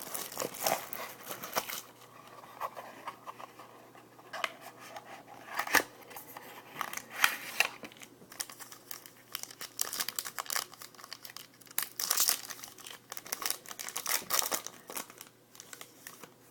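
Packaging of a trading-card box being torn open and crinkled by hand: irregular rustling, crackling and short tearing sounds.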